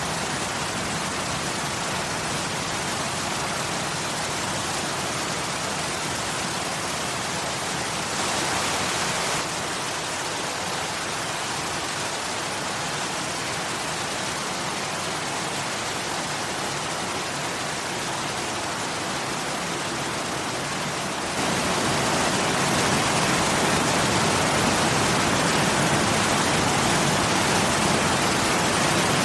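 Waterfall: a steady rush of falling water. About 21 seconds in it turns abruptly louder and fuller, as a different waterfall takes over, after a brief louder patch about 8 seconds in.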